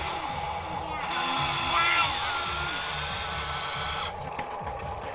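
Electric motors and gears of a Huina RC excavator whirring as it works its arm and bucket, starting about a second in and cutting off suddenly about four seconds in.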